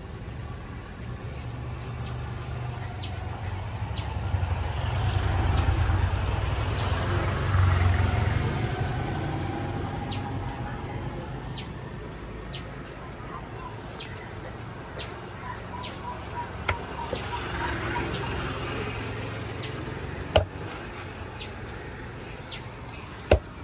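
Low engine rumble of passing road traffic, swelling and fading twice, under a bird giving short high chirps about once a second. A few sharp knocks of a knife chopping on a wooden block come near the end.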